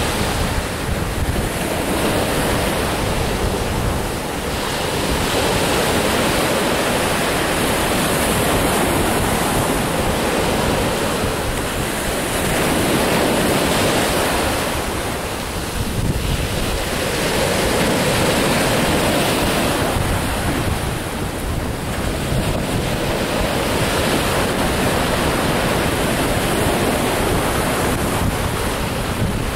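Sea waves surging and breaking, the surf swelling and easing every several seconds, with wind buffeting the microphone as a low rumble underneath.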